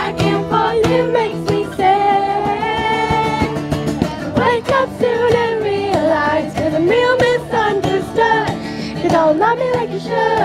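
Young women singing a pop song live to an acoustic guitar, the melody carried over steady strummed chords.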